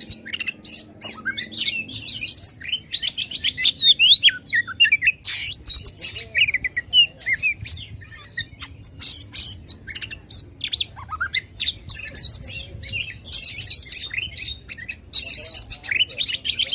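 Oriental magpie-robin (kacer) singing loudly and without pause: a fast, varied stream of high whistles, warbles, trills and sharp chattering notes, the aggressive 'ngobra' contest style.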